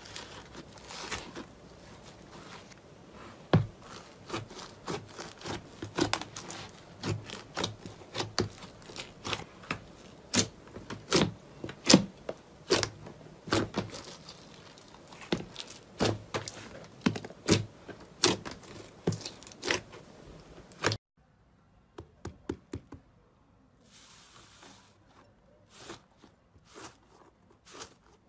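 Slime being squeezed and poked for ASMR: a run of sharp, irregular clicks and pops, about two a second. About 21 seconds in it drops off suddenly to fainter, sparser pops.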